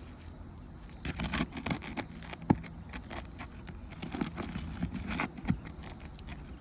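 Metal roofing tool working under an asphalt shingle to release a nail: a run of irregular scrapes and clicks, with one sharp click about two and a half seconds in.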